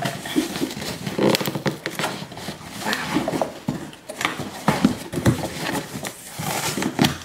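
A cardboard shipping box being torn open by hand, with kraft paper packing handled: irregular crackles, rips and knocks of cardboard and paper.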